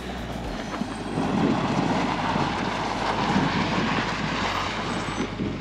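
Chrysler Town & Country minivan driving over loose volcanic cinders: engine running and tyres crunching, louder from about a second in, with background music underneath.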